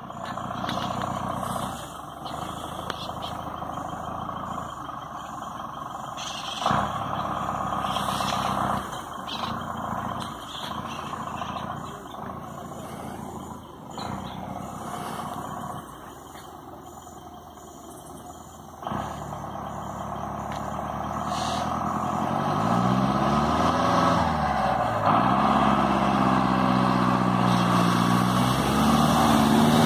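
Loaded Ford F-1000 pickup's engine roaring loud as it labours through water. Its revs rise and fall a couple of times about two-thirds of the way through, and the engine grows louder toward the end.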